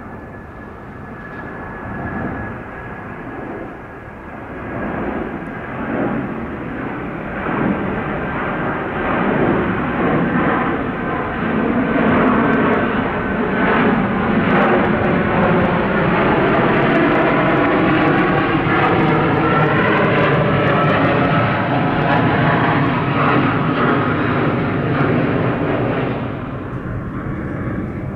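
Virgin Atlantic Airbus A330 jet climbing out after takeoff, its twin turbofan engines building to a loud, steady rumble about halfway through with a wavering whoosh over it, then easing off just before the end.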